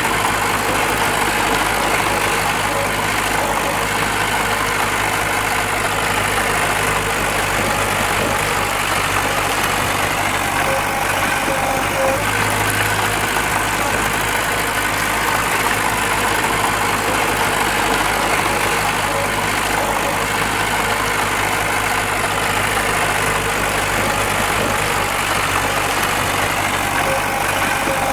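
Diesel engine of heavy earthmoving machinery running steadily at a constant low speed, with a deep hum.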